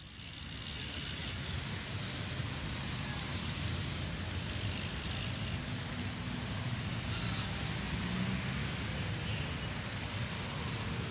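Steady road traffic noise: a continuous wash of passing vehicles with no single event standing out.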